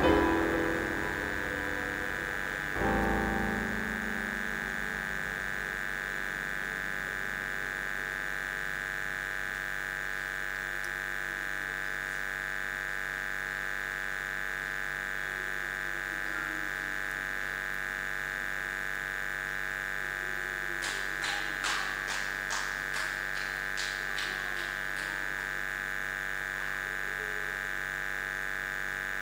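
A steady electrical hum and buzz. Near the start a last keyboard chord dies away, and about three-quarters of the way through there is a quick run of about a dozen clicks.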